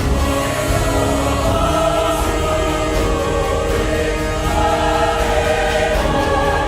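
Background music with a choir of voices singing long, held chords.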